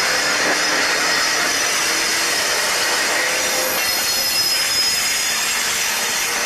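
Freight train of hopper wagons behind a Class 60 diesel locomotive rolling slowly past, its wheels giving a steady high-pitched squeal over the train's running noise.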